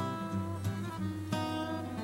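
Background music: acoustic guitar strumming and plucking chords, with the notes changing every second or so.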